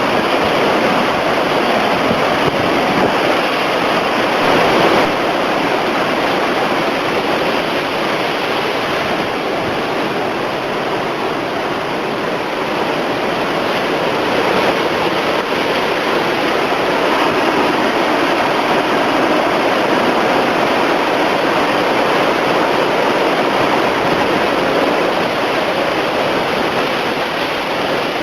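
Heavy hurricane-driven surf breaking continuously on the shore, a loud, steady rush of water with slow swells in level.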